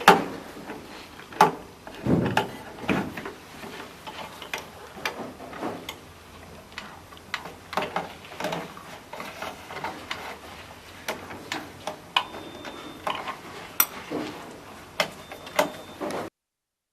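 A 13 mm wrench tightening the nut on a stringing machine's clamp holder: irregular metallic clicks and taps of the tool on the nut and fittings.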